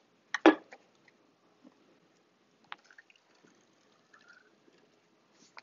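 Meat injector being handled and filled with creole butter marinade: faint wet squishes, drips and small clicks, after one short knock about half a second in.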